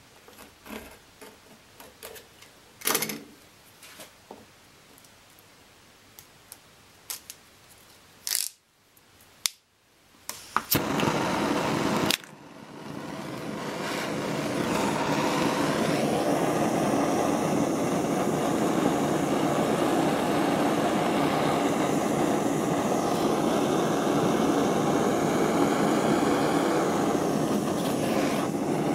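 Short clicks and scrapes of a knife stripping plastic insulation off thick copper cable. From about twelve seconds in, a small butane gas torch burns with a steady rushing hiss that builds up over a few seconds and then holds.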